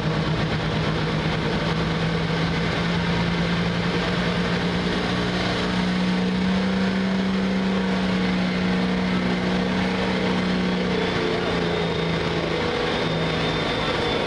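Heavy super stock multi-turbo diesel pulling tractor engine running steadily, its pitch rising a little about five seconds in and falling back around ten seconds; a faint high whine joins near the end. The turbos are not building boost: something is not working correctly.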